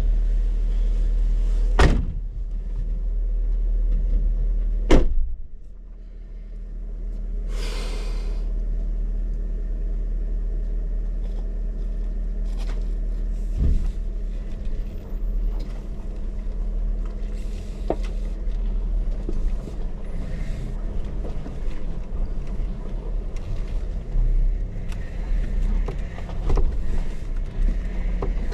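Jeep engine running slowly with a steady low rumble as it crawls over rocky trail, with two sharp knocks about two and five seconds in and scattered small clicks and creaks after.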